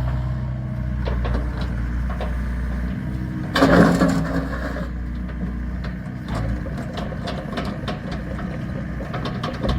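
Excavator's diesel engine running steadily while it works, with scattered knocks and clanks. About three and a half seconds in there is a louder burst of noise lasting about a second.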